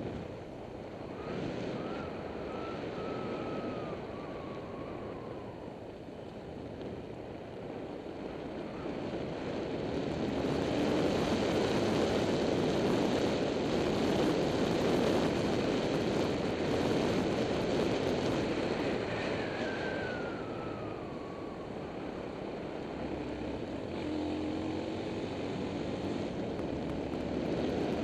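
Motorbike riding along a winding road, heard from an action camera on the bike: a steady wind rush over the microphone that grows louder through the middle, under the engine's running note. A faint engine whine drops in pitch twice, as the rider eases off the throttle.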